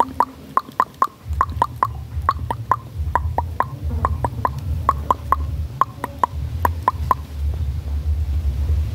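A rapid series of short, sharp clicks, each with a brief falling chirp, about three a second in groups of two or three, stopping shortly before the end, over a low rumble that sets in about a second in.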